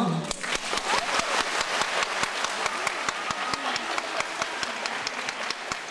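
Audience applause: many hands clapping at once in a dense, uneven patter that slowly dies down.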